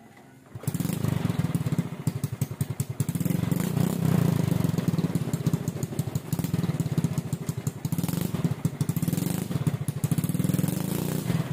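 Small motorcycle engine on a homemade three-wheeled sidecar bike starting up about half a second in and running with a fast, even beat, its revs rising and falling a few times.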